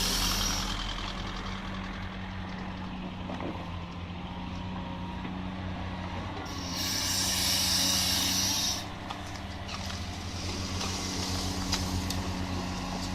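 Cat 345D L excavator's diesel engine running steadily under load, with a loud hiss of released air for about two seconds midway, from a truck's air brakes.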